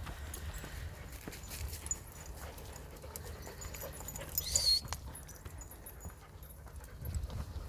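Birds singing in woodland, with footsteps and dogs moving about on the path over a low rumble. A short, loud high-pitched call comes about four and a half seconds in.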